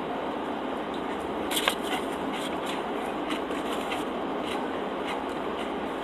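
A bite into a crusty-roll vegetable sandwich about one and a half seconds in, then scattered crunchy chewing clicks, over a steady background hiss.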